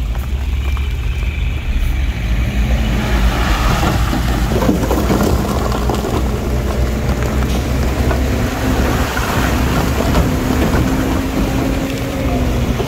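Heavy earthmoving machinery's diesel engine running, a deep rumble with an engine note that rises about three seconds in and then holds steady, under a rough rushing noise.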